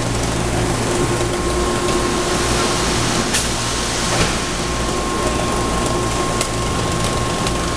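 Factory production-line machinery running with a steady hum, joined about a second in by a steady higher tone. A few short, sharp knocks sound over it.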